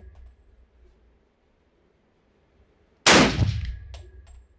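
A single rifle shot about three seconds in, with a long reverberant echo decaying down the indoor range, followed under a second later by a light metallic clink that rings briefly. The echo of an earlier shot is dying away at the start.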